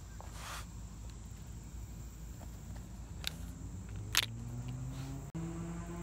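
Carrier rooftop air-conditioning unit running with a steady low hum. Tool-case handling adds a brief rustle about half a second in and two sharp clicks past the middle.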